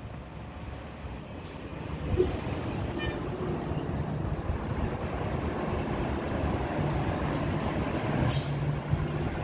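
City transit bus engine running as the bus pulls in and passes close by, getting louder. Short air-brake hisses come about two seconds in and again near the end.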